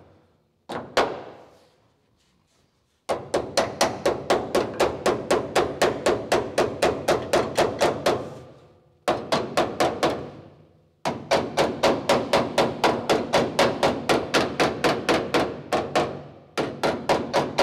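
Panel hammer striking a folded steel repair panel clamped to the car's roof edge, in fast runs of about four ringing blows a second with short pauses between. The hammering sets the fold so the steel stays in shape instead of springing back.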